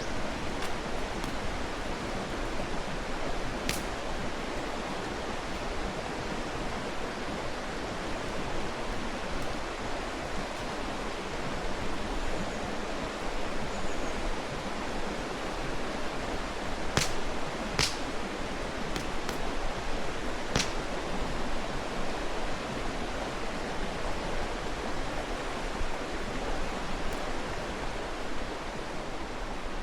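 Mountain stream rushing steadily. A few sharp pops from a wood campfire crackle over it: one early, and a handful close together a little past the middle.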